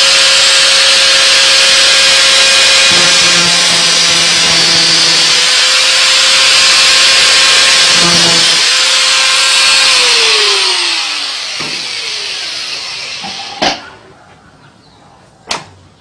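Small handheld electric grinder running at full speed, grinding a cut through the outer race of a worn washing-machine transmission bearing: a loud, harsh metal-grinding noise over a steady motor whine. About ten seconds in it is switched off and its whine falls as it spins down, followed by two sharp knocks near the end.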